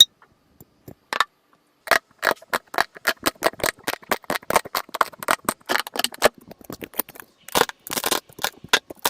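Slime being squeezed and poked, giving a fast run of crackling clicks and pops, several a second, after a couple of scattered clicks in the first two seconds.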